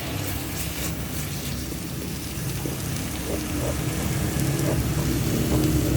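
Shrimp frying in the rice cooker's pot, a steady crackling sizzle, while a low rumble underneath grows louder toward the end.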